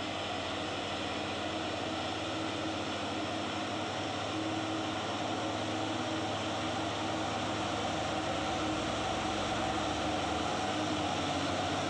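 Diesel engine of a Mitsubishi Fuso Fighter dump truck pulling up a steep gravel climb, with a Hino 500 truck's engine running behind it. The engine sound is steady and grows slowly louder as the truck nears.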